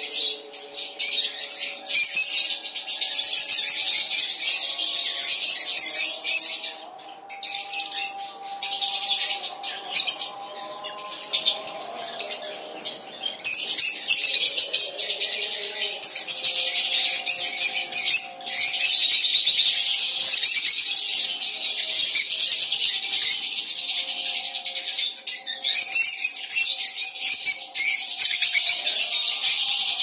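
A flock of lovebirds chattering and chirping continuously in a high-pitched, busy twitter, with a few brief lulls. Music plays quietly underneath.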